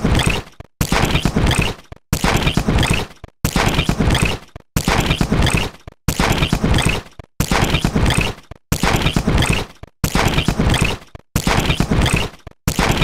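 Electronic glitch sound effect: a harsh, crackling burst of digital noise that fades and cuts off, repeating in a loop about every 1.3 seconds, roughly ten times.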